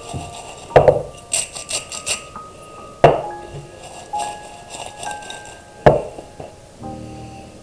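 Three sharp clinks of tableware, about one, three and six seconds in, each ringing briefly, over soft background music.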